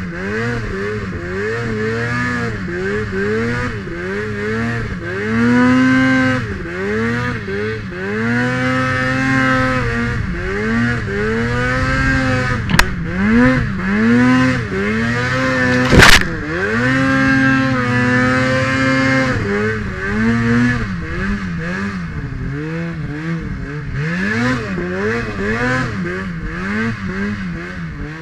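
Snowmobile engine revving up and falling back over and over as the throttle is worked, each rev rising and dropping within a second or two. Two sharp knocks a few seconds apart cut through past the middle, the second the loudest sound.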